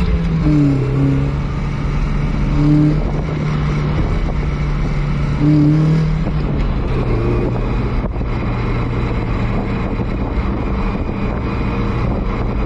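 A 1999 Mazda Miata's four-cylinder engine pulls away on a drive. Its revs rise and drop several times as it goes up through the gears, then it settles to a steady cruise about seven seconds in.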